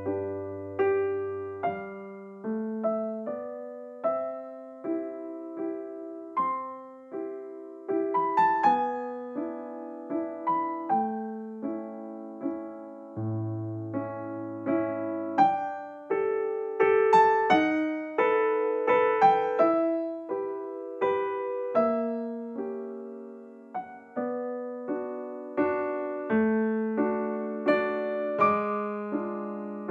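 Background piano music: single notes and chords struck one after another, each left to ring and die away.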